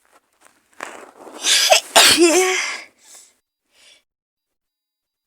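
A woman with a heavy head cold sneezing once: a gasping in-breath builds up, then a loud sneeze about two seconds in with a voiced, wavering tail, followed by a couple of faint breaths.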